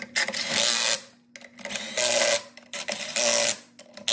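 Cordless impact wrench hammering lug nuts tight on a car wheel, in several short bursts with pauses between them as it moves from nut to nut.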